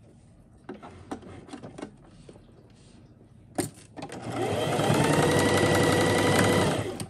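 Singer electric sewing machine stitching: after a few light clicks and rustles as fabric is placed under the needle, the motor speeds up with a rising whine about four seconds in, runs steadily for about three seconds, then stops.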